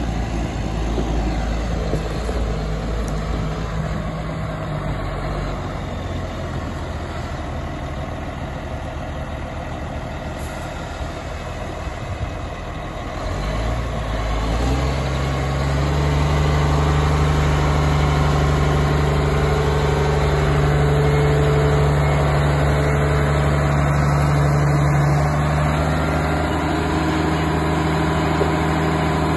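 Caterpillar 140H motor grader's diesel engine running while the grader drives across the yard, then settling into a steady idle, louder and closer, from about halfway through.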